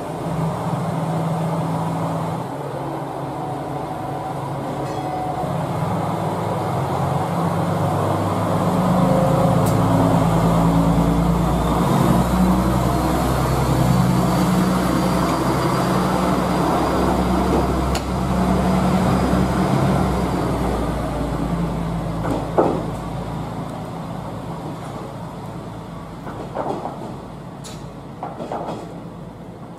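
JR West KiHa 120 single-car diesel railcar departing: its diesel engine revs up under load as the car passes close by, then the sound fades as it pulls away, with a few wheel clacks over rail joints near the end.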